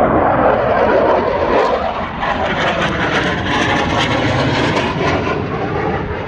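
Fighter jet flying past overhead, its engine noise a loud, steady roar. The roar is strongest in the first couple of seconds, turns rougher and crackling through the middle, and eases off near the end.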